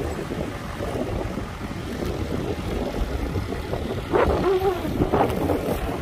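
Crawler crane's diesel engine running steadily under load as it hoists a concrete pile, with wind buffeting the microphone. Two brief, louder pitched sounds rise over the rumble a little after four and five seconds in.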